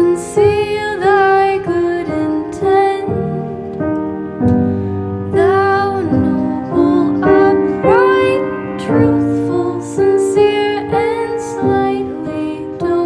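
Background music: a woman singing held, sliding notes over piano accompaniment.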